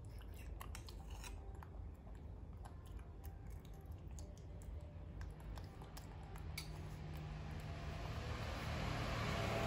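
A baby macaque being spoon-fed porridge: scattered small clicks and smacks from its mouth and the spoon, over a steady low hum. A hiss swells over the last few seconds.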